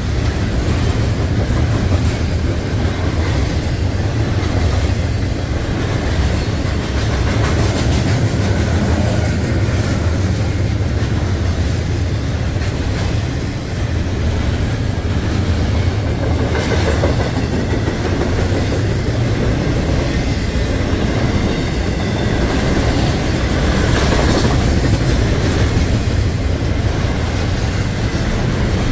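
A train rolling past, a steady loud rumble with the wheels clacking over the rails.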